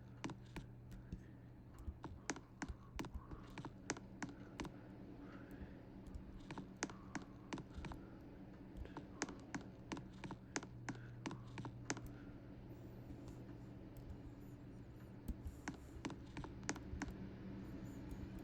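Utopian ceiling fans running on medium, with a steady low motor hum, under many irregular sharp clicks and ticks.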